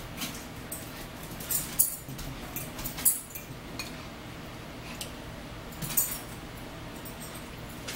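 Metal forks clinking and scraping against salad bowls, with chewing of salad greens. Three sharper clinks stand out, about two, three and six seconds in.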